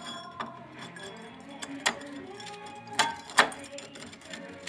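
Steel clutch parts of a scooter's centrifugal clutch clinking and knocking as they are fitted together by hand, the pressure plate being seated onto its springs. A few sharp metal knocks, the loudest two close together about three seconds in.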